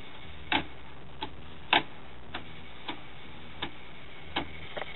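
Cassette deck of an old hi-fi stereo clicking: a string of sharp mechanical clicks, roughly one every half second or so and uneven in strength, over a faint steady hum.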